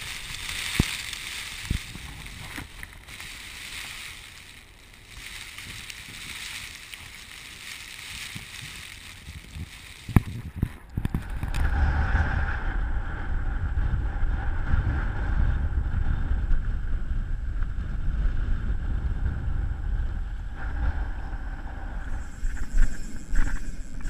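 Strong wind on the camera microphone, a high hissing rush at first with a few sharp clicks, turning to a louder, heavier low rumble about halfway through.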